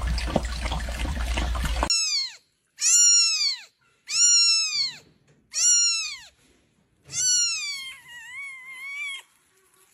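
A cat meowing five times in a row, each meow rising and then falling in pitch, the last one longer and wavering. The meows begin after about two seconds of steady rushing noise that then cuts off.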